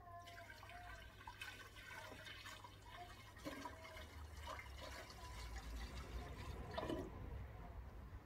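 Water poured from a plastic watering can into a tall glass vase, splashing as the vase fills. The pouring stops about seven seconds in.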